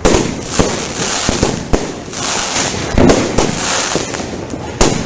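Fireworks going off in quick succession: repeated sharp bangs, about two a second with the loudest near the start and just before the end, over a continuous crackling hiss.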